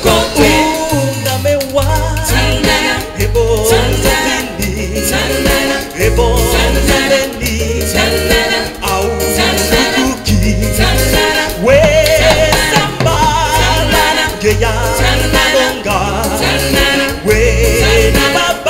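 A song performed by a band, with lead and backing singers over a steady, pulsing bass line.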